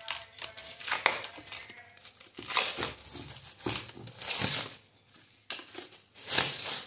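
Clear plastic wrap being torn and pulled off a wooden box by hand, crinkling and tearing in irregular bursts, with a short lull about five seconds in.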